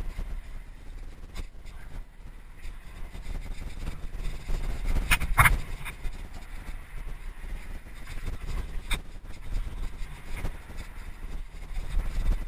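Trek Remedy 8 (2013) full-suspension mountain bike running fast down a dirt and gravel trail, with tyre rumble and wind buffeting on a helmet-mounted camera. Sharp clatters come as the bike hits bumps, the loudest a quick double knock about five seconds in.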